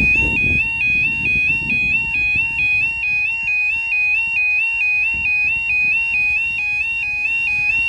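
UK level crossing's electronic yodel alarm, two tones alternating steadily about twice a second, warning that the barriers are down for an approaching train. A low rumble runs underneath.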